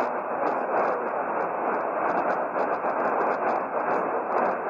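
Steady hiss of AM radio static, with rapid irregular crackling throughout.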